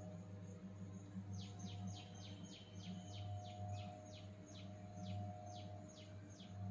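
A small bird chirping a fast run of short, falling high notes, about three or four a second, starting about a second in, over a steady low electrical hum.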